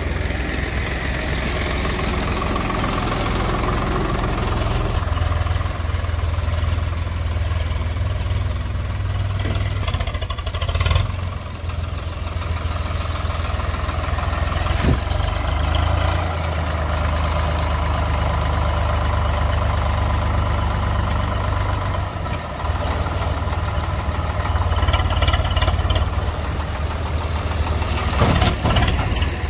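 Swaraj 744 FE tractor's three-cylinder diesel engine running steadily, with a brief break about eleven seconds in and a few sharp rattling clicks near the end.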